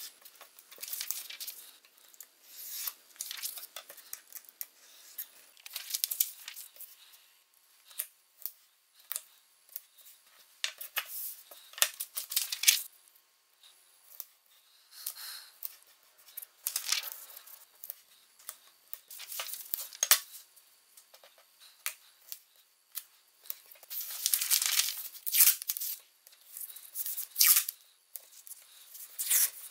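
Paper printouts being torn along a steel ruler and strips of blue masking tape ripped off the roll and pressed onto the paper, in short irregular tearing and rustling bursts with pauses between them.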